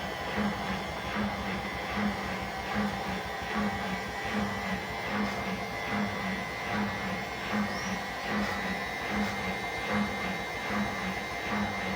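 Washing machine running its spin cycle: a steady high motor whine with a low pulse repeating evenly a little under twice a second as the drum turns.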